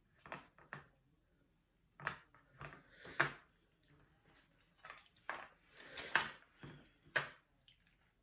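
Oysters being eaten off the half shell with wooden chopsticks: a string of short clicks, scrapes and mouth sounds, the loudest about three seconds in and around six to seven seconds.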